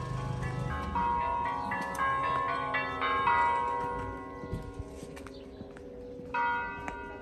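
Orthodox church bells ringing. Several bells of different pitch are struck in a quick, irregular run of strokes that ring on and die away, and one more bell stroke comes near the end.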